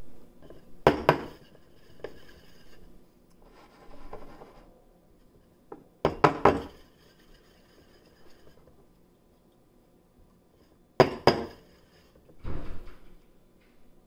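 A ceramic espresso cup and a stainless steel milk pitcher being handled and knocked against a countertop: pairs of sharp knocks about a second, six seconds and eleven seconds in, with softer scraping and shuffling between.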